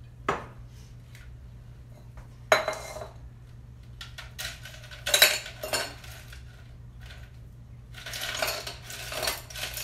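Sharp clinks and knocks of ice and stainless steel cocktail gear being handled on a countertop: a few separate hits spread out, then a denser run of rattling and rustling near the end.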